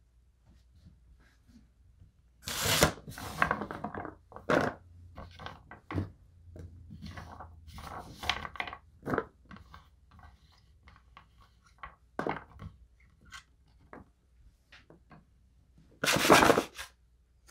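Cubes of raw butternut squash being scraped across a wooden cutting board and dropped by hand into a plastic tub: two louder bursts of scraping, one about two and a half seconds in and one near the end, with many light knocks and taps between.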